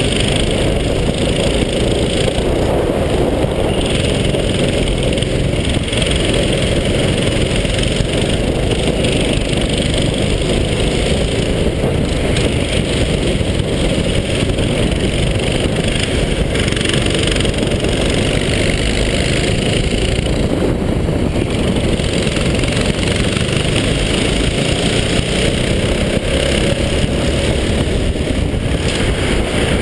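Go-kart engines running at racing speed, the driver's own kart and others close ahead, heard from the driver's helmet as a steady, dense, muffled engine noise.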